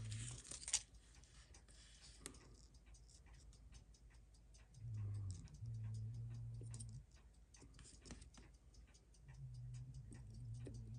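Faint, rapid ticking from a Seiko 6309 automatic watch movement sitting in a movement holder as its hands are fitted. A man hums low, tuneless notes twice, about five seconds in and again near the end.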